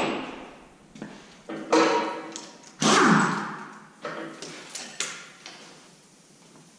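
A few separate metallic knocks and clanks, each dying away quickly, as tools and cylinder head bolts are handled while the heads are unbolted from an LS engine.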